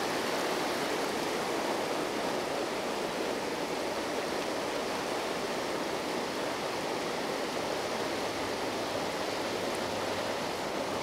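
Steady rushing of a wide, fast river riffle, heavy water breaking in white waves over a stony bed.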